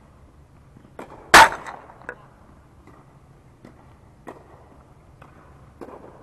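A tennis ball striking hard near the net: one loud, sharp smack about a second in that rings briefly around the hall. A few much fainter knocks follow at uneven intervals.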